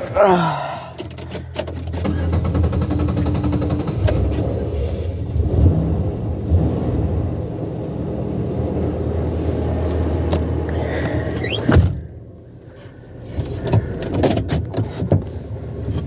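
A steady low rumble, then a single loud thunk about twelve seconds in as the car's driver door is shut, after which it goes much quieter, with a few small knocks of handling.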